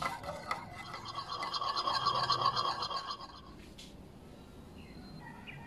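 A thin metal rod stirring polyurethane wood varnish in a metal tin, a rapid, rhythmic scraping and clinking against the tin that stops after about three seconds. The varnish is being mixed with 10–15% lacquer thinner.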